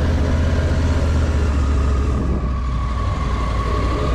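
Triumph Tiger motorcycle's three-cylinder engine running at low road speed, a steady low drone.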